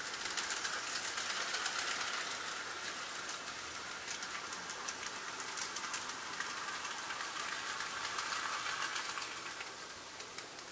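N gauge model train running along the track: its small electric motor whirring, with rapid fine clicking from the wheels on the rails. It swells up at the start and fades away near the end as the train passes and moves off.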